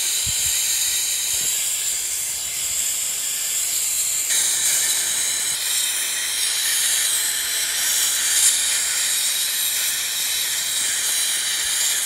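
Compressed air leaking from the air compressor's tank with a steady hiss, which gets brighter about four seconds in. The leak is at the pressure switch, which the owner traces to an over-long, poorly seated air hose in the switch fitting.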